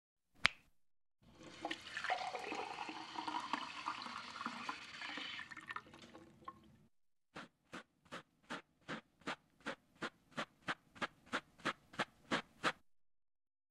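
A sharp click, then a toilet flushing with a rushing wash of water for about five and a half seconds. Then quick footsteps, about three and a half a second, grow louder as they approach.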